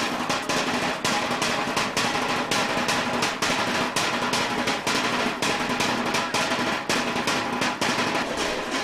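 Drum-led music: a fast, steady drumbeat of snare-like strokes, several a second, over held instrument notes.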